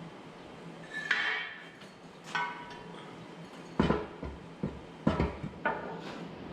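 Steel loader parts clanking as a bracket is fitted to the boom: two ringing metal clinks, then, about four seconds in, a run of heavier knocks and thuds.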